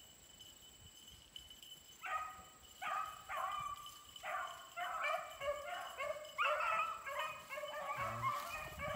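Beagles baying on a rabbit's trail, starting about two seconds in. There are repeated drawn-out bawls, more voices overlapping and louder toward the end as the pack runs the rabbit back around.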